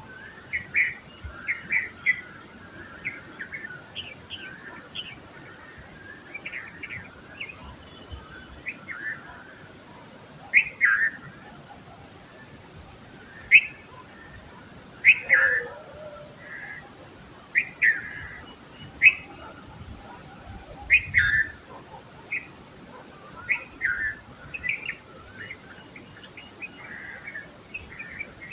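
Red-vented bulbul calling: short, loud chirpy phrases repeated every second or two. A steady high thin tone runs underneath.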